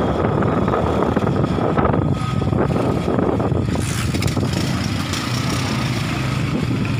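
Small motorcycle's engine running steadily while riding along a street, mixed with wind and road noise, easing off a little about four seconds in.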